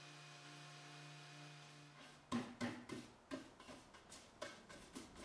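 A steady low hum stops about two seconds in. It is followed by about ten quick, scratchy strokes of a bristle brush sweeping sanding dust off freshly sanded oak veneer.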